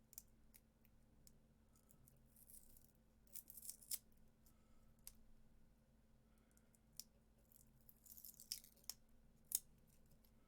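Faint scattered clicks and short scratchy rustles from a laptop battery pack being handled and picked apart, with a few sharper ticks among them.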